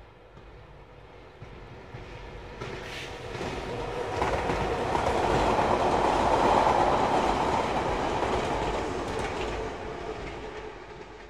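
A train passing, growing louder to a peak about midway and then fading away toward the end.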